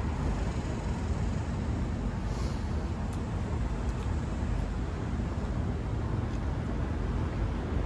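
Steady low rumble of outdoor street traffic, with a few faint small ticks.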